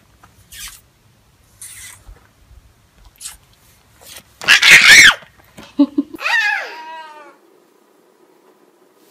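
A horse snorts loudly through its nostrils with a short, noisy blast about halfway through. Shortly after, a lamb bleats once, the call falling in pitch and fading.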